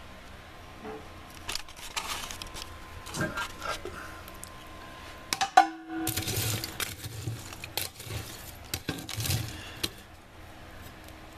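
Scattered light metallic clicks and clinks from handling the open door of a Drolet HT 2000 wood stove, with one sharp click about five and a half seconds in.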